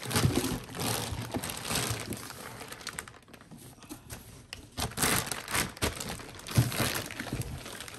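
Clear plastic protective bag crinkling as it is handled and pulled back by hand, with a quieter stretch about halfway through and louder crinkling after it.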